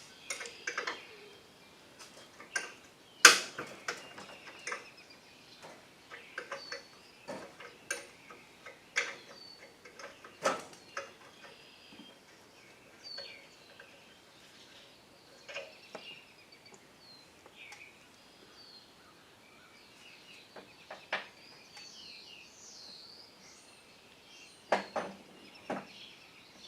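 Scattered metal clinks and knocks of hand tools working on a riding lawn mower, the sharpest about three seconds in, with faint bird chirping behind them that grows busier near the end.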